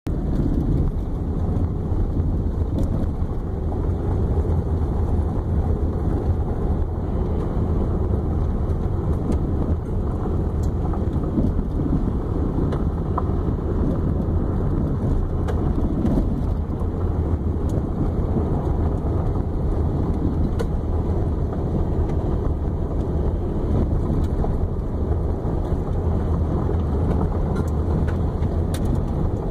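Vehicle driving on a gravel road, heard from inside the cabin: a steady low rumble of tyres and engine, with a few scattered faint ticks.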